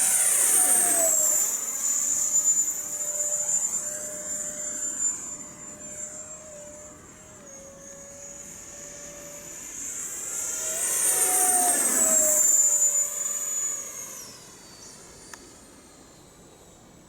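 Radio-controlled F-4 Phantom model jet with an 80 mm electric ducted fan flying past twice: a steady high fan whine over a lower hum that swells and drops in pitch as the jet sweeps by, about a second in and again around twelve seconds in. The whine falls away about three seconds before the end.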